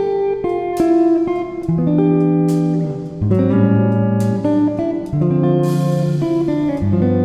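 Instrumental ambient background music: sustained chords over a bass line that changes every second or so.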